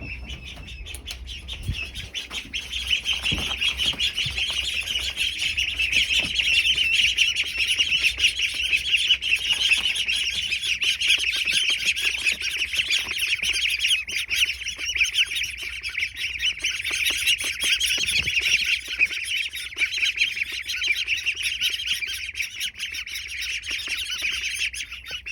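A group of ducklings peeping continuously, many rapid high chirps overlapping.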